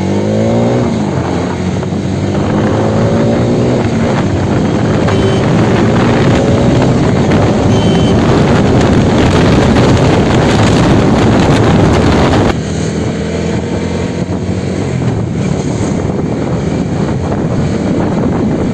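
Bajaj Dominar 250's 248.8 cc liquid-cooled single-cylinder four-stroke engine under way. It climbs and drops in pitch through gear changes, then runs at speed under heavy wind rush on the microphone. The sound drops suddenly about twelve seconds in, and the engine pitch climbs again.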